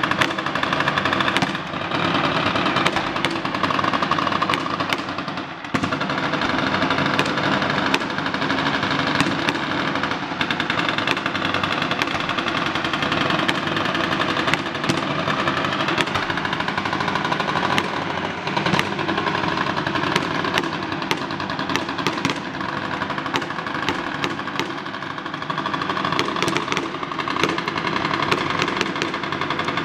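Fireworks going off in a dense, continuous barrage of rapid pops and crackles, with sharper cracks scattered throughout.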